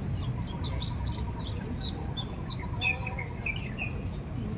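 Small birds chirping: many quick, high chirps overlapping throughout, over a steady high-pitched hiss and a low rumble.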